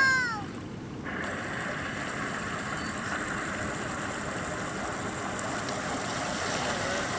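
A motorised surfboard's motor running steadily, heard as an even drone with a faint constant whine, starting about a second in. At the very start there is a brief, louder rising-and-falling tone.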